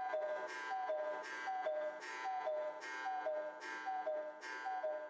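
Cuckoo clock calling its two-note falling "cuck-oo", high note then low, repeated evenly about seven times, roughly one call every 0.8 seconds.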